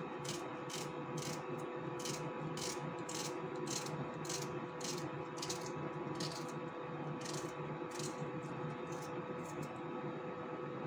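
Red onion sliced thin by hand with a small knife, no board, each stroke a short crisp cut through the onion, about two a second, stopping shortly before the end. A steady hum runs underneath.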